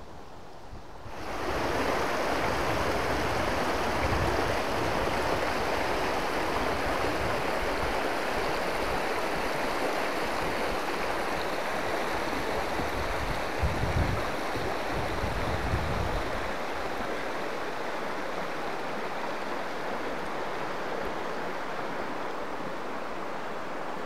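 Shallow, clear mountain river running over stones and gravel: a steady rushing hiss that starts suddenly about a second in, with a couple of brief low rumbles partway through.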